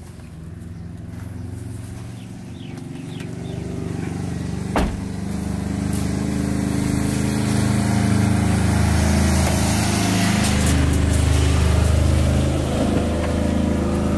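A motor vehicle engine running, growing steadily louder over the first several seconds and then holding; a sharp knock about five seconds in.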